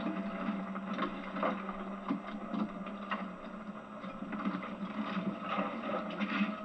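Irregular clacks and rattles of oyster tongs and shells being worked from a boat, over a steady low hum.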